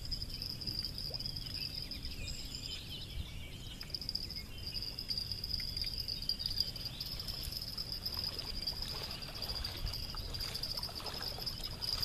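A steady high-pitched insect trill, like a cricket's, that breaks off briefly about three and a half seconds in, with a low rumble underneath.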